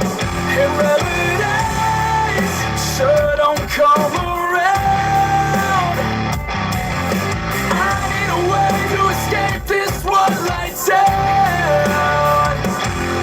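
Heavy rock song with a sung and partly shouted lead vocal over distorted guitars, bass and drums.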